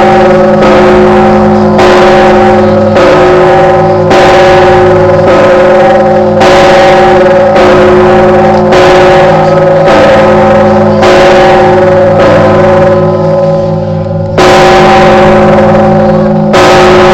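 A 7,150 kg Orthodox cathedral bell struck again and again by its clapper, about one stroke a second, with heavier blows every two seconds or so. Each stroke rings on into the next over a deep, pulsing hum.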